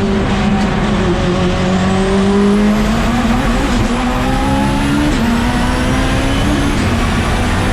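Mitsubishi Lancer Evolution time-attack race car's engine running hard on track, its pitch climbing slowly with small dips about three, five and seven seconds in.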